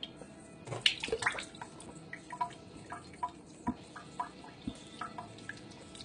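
Irregular small wet drips and clicks as a thick blended oatmeal-and-banana shake is drunk over a sink.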